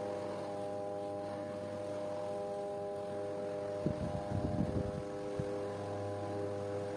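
A steady hum made of several held tones, with a cluster of light taps and clicks about four seconds in.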